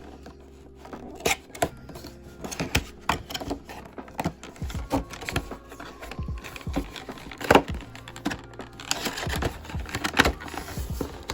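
Plastic and cardboard packaging being handled and pulled apart as action figures are taken out of their box: an irregular run of clicks, rustles and knocks, with one sharper knock about halfway through, over lo-fi background music.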